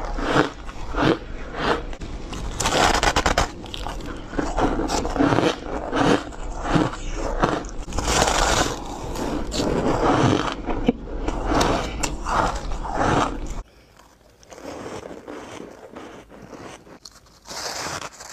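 Close-up biting and chewing of soft, powdery white snowflake ice, in a quick run of irregular crisp crunches. About two-thirds of the way through the sound drops off abruptly and goes on as lighter, quieter crunching, louder again near the end.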